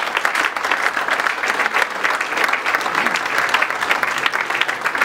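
An audience of a few dozen people applauding steadily, a dense run of hand claps.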